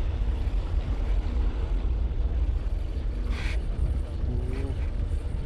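Wind buffeting the microphone in a steady low rumble, with the faint hum of a boat engine underneath and a brief hiss about three seconds in.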